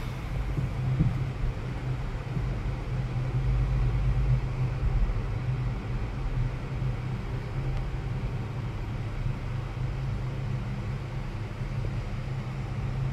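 Steady low hum and rumble heard inside a moving Firstbahn gondola cabin as it rides along its cable.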